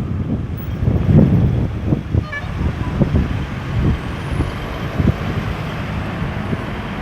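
Road traffic at a busy roundabout: a steady wash of car and truck engines and tyre noise, swelling in the first few seconds as heavier vehicles pass.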